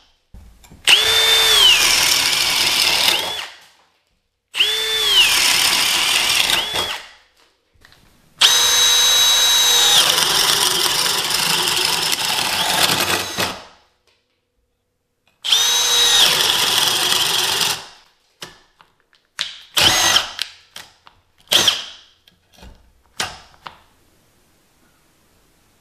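Milwaukee M12 FUEL hammer drill boring a spade bit through a pine 2x4: four long runs of motor whine, the pitch sagging under load and recovering, with pauses between holes. Near the end come several short stop-start bursts of the trigger.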